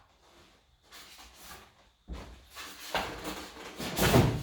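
Cardboard box being handled and opened: rustling and scraping from about halfway through, with a heavy thump near the end.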